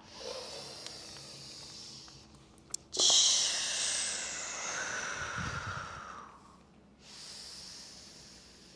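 Deep yoga breathing through the nose and mouth: a soft breath, then a long, louder exhale starting about three seconds in and sliding down in pitch, then a softer breath near the end. A small click comes just before the long exhale.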